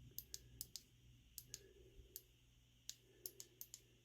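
Faint, irregular small clicks, about a dozen, as a small pocket flashlight is handled.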